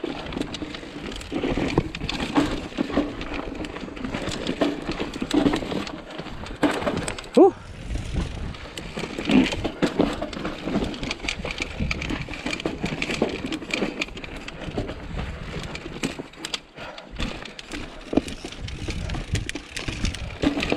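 Mountain bike riding over rocky singletrack: tyres rolling on dirt and rock with frequent clicks, knocks and rattles from the bike as it hits bumps, over a steady low rumble of wind on the camera microphone. A brief rising squeak about seven seconds in is the loudest sound.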